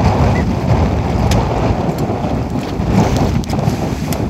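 Wind buffeting the microphone on a small boat at sea: a steady low rushing noise with the sea washing under it, and a few light clicks.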